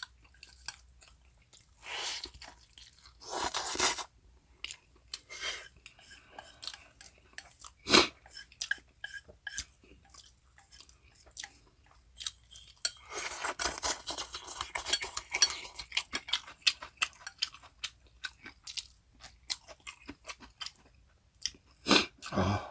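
Close-up eating sounds: chewing mouthfuls of spicy cold mixed noodles and pancake, with chopsticks clicking against the bowl and dishes, and a few longer noisy stretches between the clicks.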